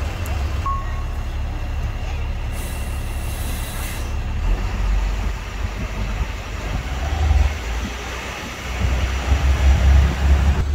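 Diesel tow truck pulling away with a sleeper semi tractor in tow, a steady low engine rumble that grows louder near the end, with a burst of air hiss about two and a half seconds in.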